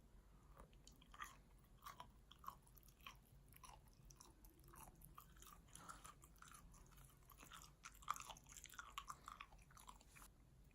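A person chewing food close to the microphone, faint: a steady run of small wet clicks and soft crunches.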